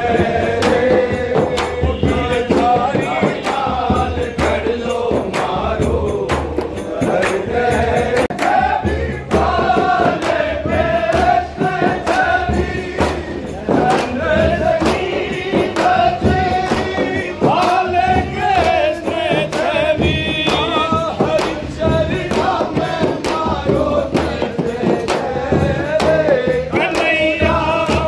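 A group of men singing a Rajasthani Holi folk song (fag) in chorus, with chang frame drums beaten in a steady rhythm underneath.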